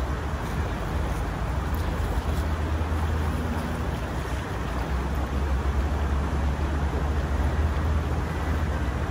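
Steady rush of shallow creek water running over gravel, over a constant low rumble.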